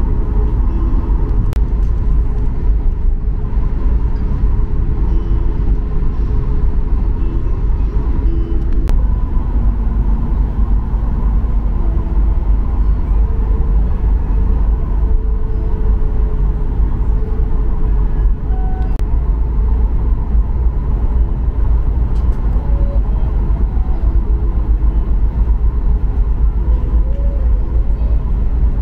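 Cabin noise inside a Boeing 737 MAX 8 taxiing after landing. Its CFM LEAP-1B engines are at taxi power and its wheels roll on the taxiway, giving a steady low rumble with faint shifting engine tones.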